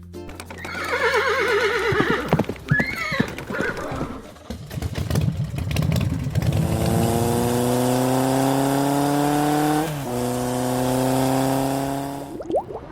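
A horse whinnying with a wavering pitch, followed by scattered knocks. About halfway through, a car engine accelerating in a steadily rising drone drops in pitch once as it shifts gear, then rises again before fading out.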